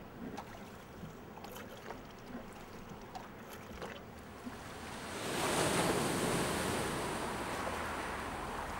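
A car drawing up on a road at night: faint road hiss at first, then its tyre and engine noise swells quickly about five seconds in and eases off slowly as the car slows.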